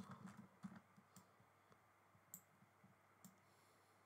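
Faint computer mouse clicks: a quick run of soft ticks in the first second, then a few single clicks spaced about a second apart.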